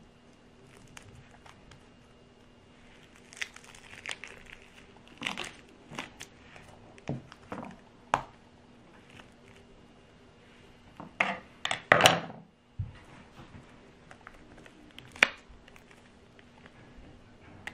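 A rubber balloon skin being cut with scissors and peeled off a ball of set slime: scattered crinkling and sticky tearing sounds, with a louder burst of crackling about two-thirds of the way through.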